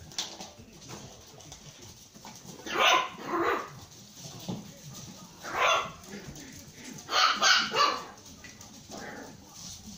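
Young puppies barking in play: short yapping barks in a few bursts, about three seconds in, again near the middle, and a quick run of barks about seven seconds in.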